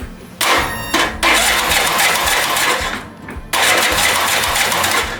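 Starter cranking the Cub Cadet RZT S mower's twin-cylinder engine in two tries, about two and a half seconds, a short pause, then nearly two seconds more, without it running: hard starting, the engine reluctant to turn over, which the owner puts down to too much compression.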